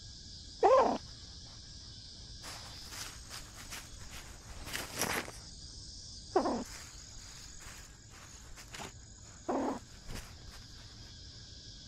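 Crickets chirping steadily, with rustling steps a few seconds in. Three short, loud calls that fall in pitch come about a second in, past the middle, and near the end.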